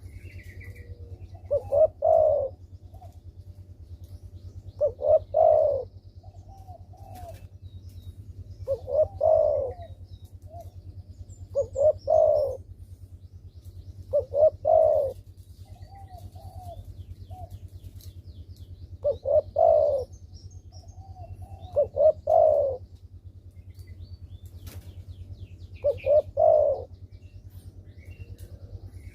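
Derkuku (island collared dove) cooing: eight short, loud cooing phrases repeated about every three to four seconds, calling steadily over a low steady hum.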